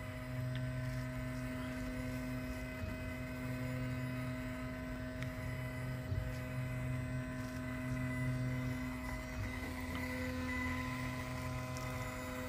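Diode laser engraver running while it engraves a ceramic tile: a steady machine hum with a few faint ticks.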